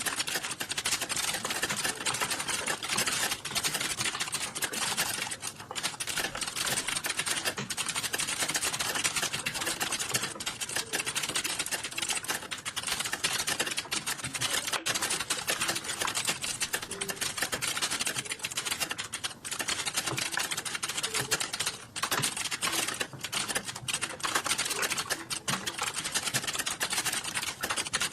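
Fast, continuous typing on a computer keyboard: a dense stream of key clicks, broken by a few brief pauses.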